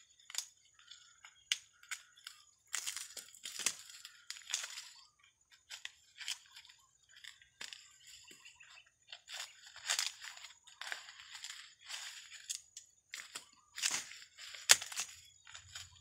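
Dry corn stalks, leaves and husks crackling and rustling as ears of field corn are picked by hand, with irregular sharp snaps. The loudest snap comes near the end.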